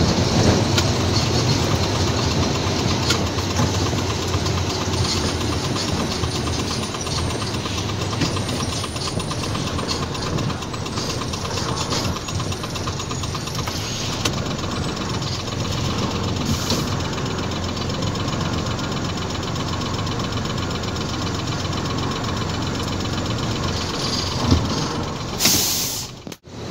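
Isuzu heavy truck's diesel engine running as the tractor-trailer moves slowly, heard from inside the cab as a steady low rumble. A short loud hiss comes near the end.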